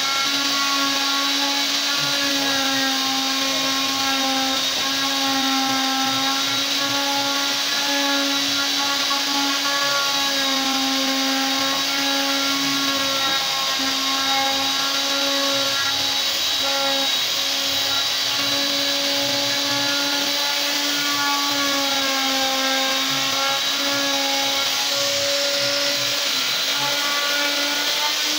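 Handheld plunge router running steadily as its bit cuts a carved pattern into a wooden board: a continuous whine whose pitch wavers slightly as the bit bites into the wood.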